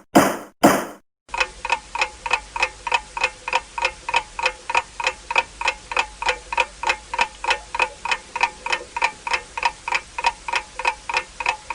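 A judge's wooden gavel strikes twice, then a clock-ticking 'time is running out' effect starts with about four even ticks a second.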